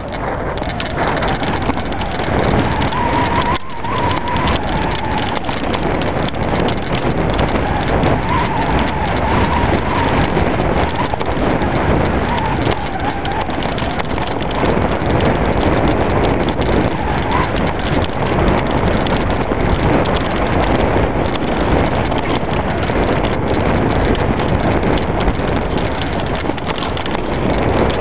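Mountain bike ridden fast down a rough enduro trail: a continuous clatter of the bike rattling over rocks and dirt, mixed with wind on the microphone. A faint wavering squeal comes and goes a few times.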